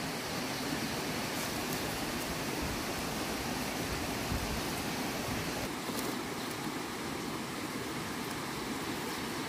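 A steady, even rushing noise, with a couple of faint snaps, about one and a half seconds in and again around six seconds, as dry fruit stems are broken off by hand.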